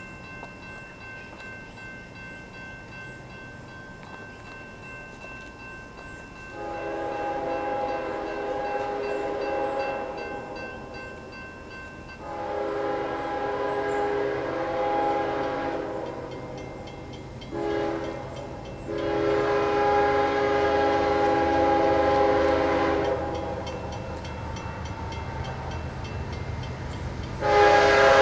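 Nathan K5HLL five-chime air horn on a CSX ES44AH locomotive sounding the grade-crossing signal as the train approaches: two long blasts, a short one and a long one. Near the end it starts another, louder blast.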